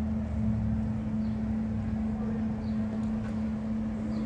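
A swarm of honey bees clustered at rest, humming: a steady, even buzz that holds one pitch.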